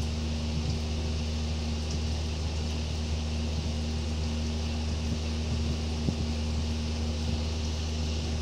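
Steady low hum with an even hiss over it, unchanging throughout, with a few faint ticks.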